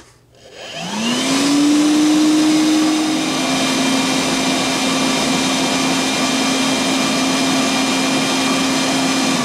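Milwaukee M12 Fuel cordless vacuum with a brushless motor switched on with a click, spinning up with a rising whine over about a second, then running steadily in low-power mode with an open intake, a steady whine over a rush of air. The pitch steps down slightly a few seconds in.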